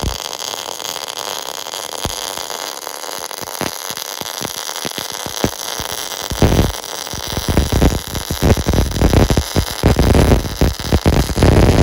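MIG welding arc crackling and spitting on steel in irregular sharp bursts over a steady hiss. The crackle gets denser and louder about halfway through.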